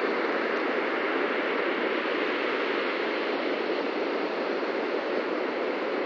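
Steady noise of ocean surf breaking, an even wash with no single wave crash standing out.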